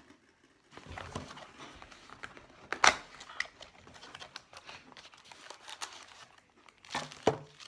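Cardboard trading-card box being handled and opened by hand: rustling, crinkling and small clicks, with one sharp knock about three seconds in.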